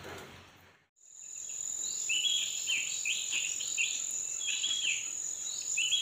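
From about a second in, a steady high-pitched insect drone, with short bird calls repeating about twice a second over it.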